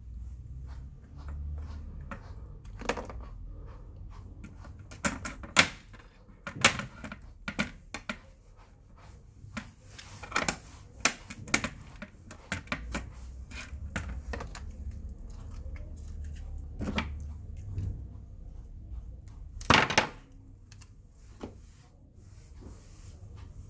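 Irregular clicks, taps and knocks of tools and small hard parts being handled on a workbench, with a louder clatter a few seconds before the end, over a steady low hum.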